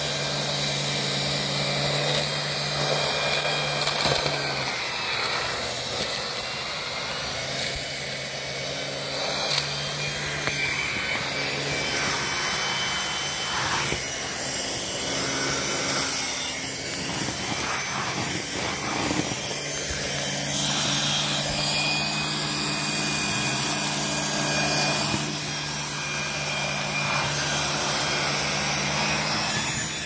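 Miele vacuum cleaner running steadily while its floor head is pushed over a hard floor, sucking up scattered plant clippings, with the head rubbing along the floor. The motor's low hum weakens for a stretch in the middle, then comes back.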